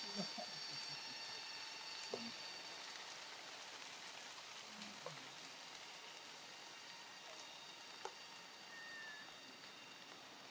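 Faint outdoor ambience: a steady hiss with a thin, high, steady insect drone, broken by a few faint clicks and taps and one short chirp near the end.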